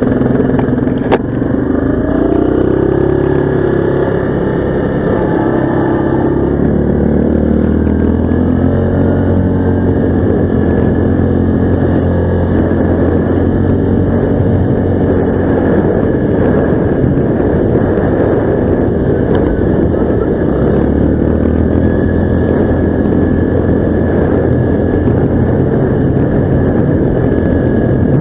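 Vehicle engine running under way on a trail, its pitch stepping up and down with speed, over a steady rushing noise. A single sharp click about a second in.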